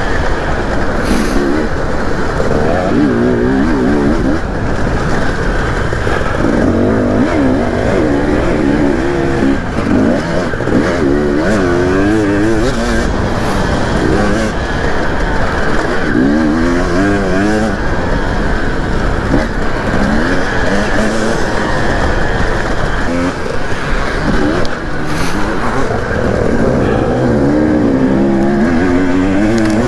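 Dirt bike engine heard from on board, revving up and dropping back again and again as the rider accelerates and eases off along the track, over steady wind and rolling noise.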